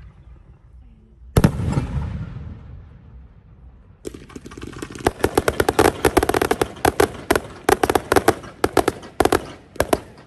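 Fireworks display: a single shell bursts with a loud bang about a second and a half in, its echo fading over the next two seconds, then from about four seconds a dense, rapid run of sharp crackling bangs.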